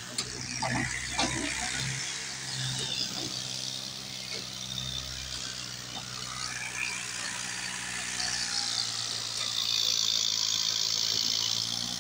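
Excavator's diesel engine running steadily. A louder hiss joins about nine and a half seconds in.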